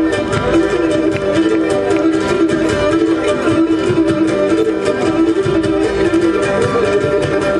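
Cretan lyra, a small bowed three-stringed fiddle, playing a quick running melody over a steady plucked-string accompaniment strummed in a regular rhythm.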